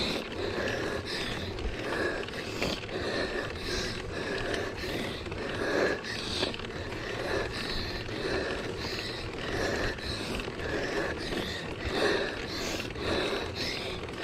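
Mountain bike rattling over a rough trail, with a rhythmic sound repeating roughly every half second.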